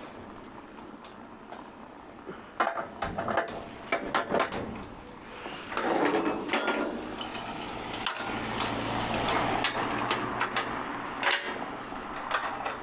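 Irregular knocks and clatter of objects being handled, in clusters, with a low steady hum for a few seconds past the middle.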